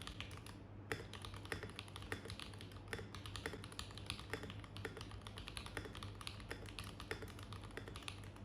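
Mechanical keyboard being typed on: a fast, continuous run of keystroke clicks, several a second, over a faint low hum.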